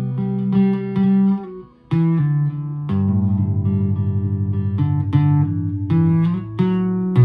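Guitar improvisation: plucked notes and chords ringing over sustained low notes. The sound dies away briefly about two seconds in before new notes come in, and the low notes pulse rapidly for a few seconds in the middle.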